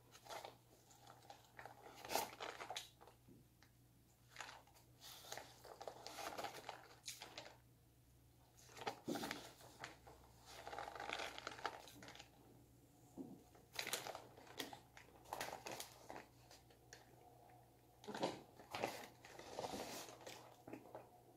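Food packaging crinkling and rustling in quiet, irregular bursts as food is handled.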